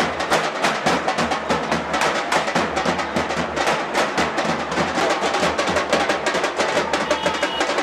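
Fast, dense drumming: rapid strokes follow one another many times a second without a break.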